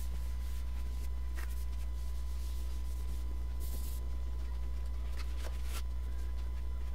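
Faint scattered strokes of a hand wiping over a resin-and-wood tabletop, over a steady low hum.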